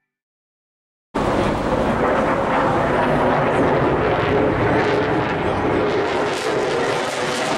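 Loud, steady jet noise from an F-22 Raptor fighter flying overhead. It starts abruptly about a second in, after near silence.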